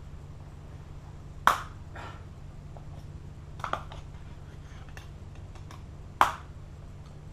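Three short, sharp clicks spaced a couple of seconds apart, over a steady low hum.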